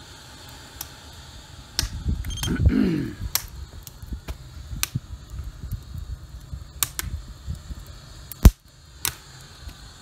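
Split wood burning in a rocket stove's firebox, crackling with scattered sharp pops over a steady low rumble. One much sharper click comes about eight and a half seconds in.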